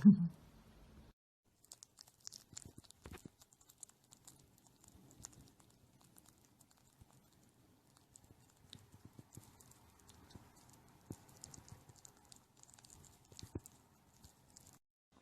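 Faint, scattered light taps and clicks, irregular and sparse.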